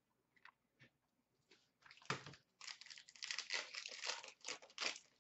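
A 2016-17 Upper Deck SP Authentic hockey card pack wrapper being torn open and crinkled by hand. It starts about two seconds in after a couple of faint ticks and continues as a dense crinkling rustle.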